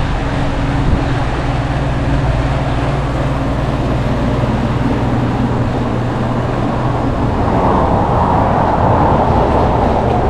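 A vehicle engine running steadily with a low hum, and a rushing noise that comes up about seven seconds in.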